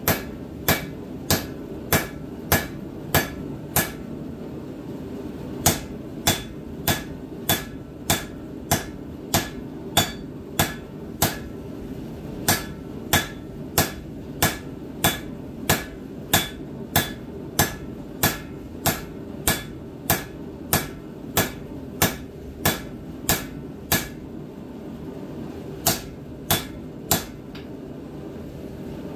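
Hand hammer striking a red-hot steel tomahawk head on an anvil at a steady pace of nearly two blows a second, each blow ringing sharply. The hammering pauses briefly three times and stops near the end. A steady hum runs underneath.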